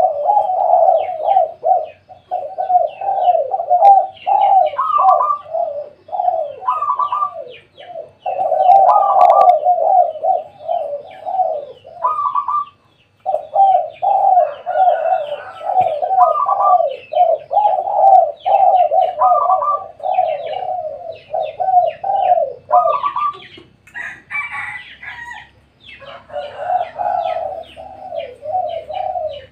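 Several spotted doves cooing almost without a break, their phrases overlapping, with a higher note coming in every two or three seconds and a brief gap about thirteen seconds in.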